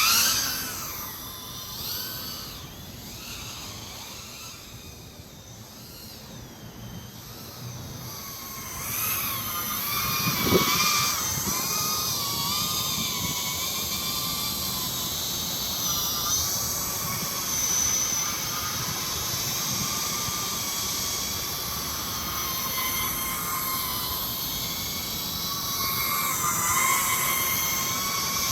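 Brushless motors and propellers of a 260 mm FPV racing quadcopter whining in flight, the pitch wavering up and down with the throttle. The whine is loud at first, drops quieter for a few seconds, then comes back strongly about nine seconds in, with a short thump just after.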